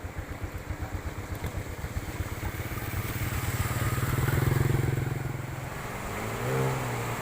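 A motor vehicle's engine with a rapid low throb, swelling to its loudest about halfway through as it passes and then fading, with a second engine hum briefly near the end.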